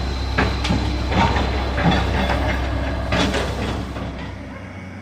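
Excavator's diesel engine running with a steady low drone, with irregular knocks and rattling on top; the drone drops away about four and a half seconds in.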